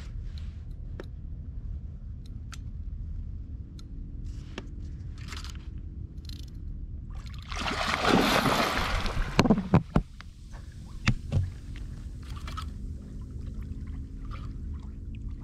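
Small inflatable boat on the water with a steady low rumble and faint motor-like hum, water sloshing. About eight seconds in comes a loud rushing splash lasting a couple of seconds, followed by a few sharp knocks.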